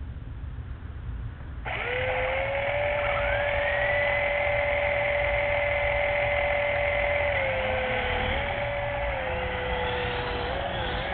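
Small electric motor of a toy RC helicopter starting suddenly about two seconds in and spinning up to a steady high whine. The pitch dips slightly and wavers in the last few seconds.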